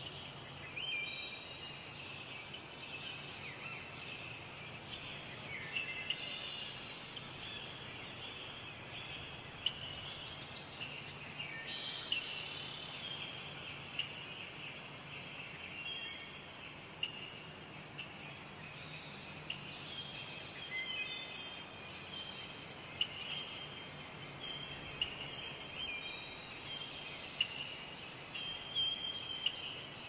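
A steady, high-pitched insect chorus, like trilling crickets, with scattered short bird chirps throughout.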